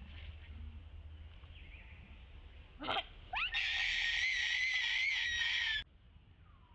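Baby macaque screaming: a short yelp about three seconds in, then a rising squeal that turns into one long high-pitched scream of about two seconds, which cuts off suddenly.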